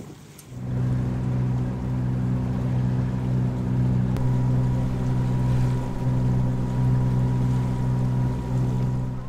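Boat engine running steadily with an even, low drone. It starts abruptly about half a second in and cuts off suddenly at the end.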